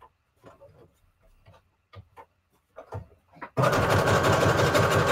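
Light taps of paper pieces being positioned, then about three and a half seconds in an electric sewing machine starts stitching at speed through the paper scraps, a fast even run of needle strokes.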